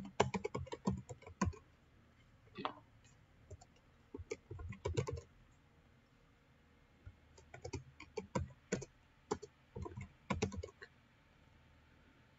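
Typing on a computer keyboard in short bursts of quick key clicks, with pauses of a second or two between bursts.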